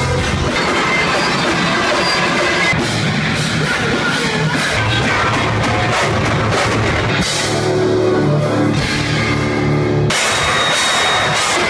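A rock band playing loudly live: distorted electric guitars, bass and a pounding drum kit. The sound changes abruptly twice, about seven and ten seconds in, as it cuts between performances.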